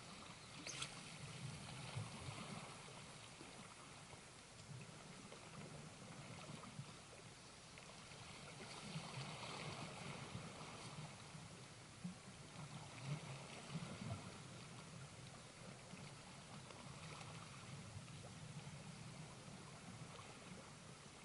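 Faint sea water washing and lapping at the shore, swelling and fading in slow surges.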